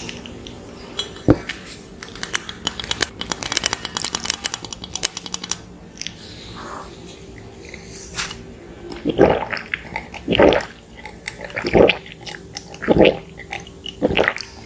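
Close-miked eating of a soft, sticky cinnamon roll. A dense run of fine wet clicks in the first half, then a series of louder chewing sounds at about one a second.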